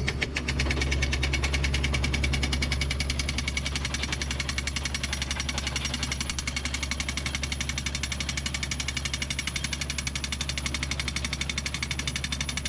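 Soil drill rig running: a steady engine hum under a rapid, even knocking.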